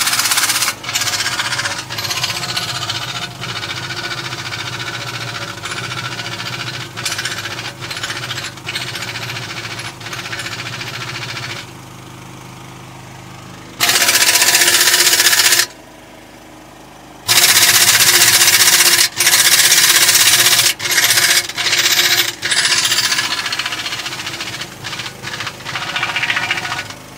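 AirCat 1870-P pneumatic impact wrench hammering on the lug nuts of a large wheel. One long rattling run of about twelve seconds, a short pause, then a string of louder bursts a second or two long with brief gaps between them.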